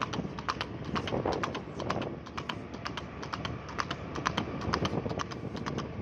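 A ridden horse's hooves clattering on a paved road at a fast gait: a quick, uneven run of sharp clip-clop strikes, several a second.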